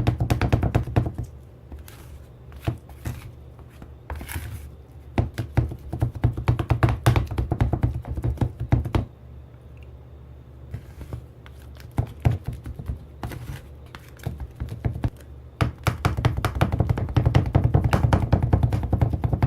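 Irregular taps and knocks of spatulas chopping on an ice cream roll plate. Background music plays at the start and again near the end.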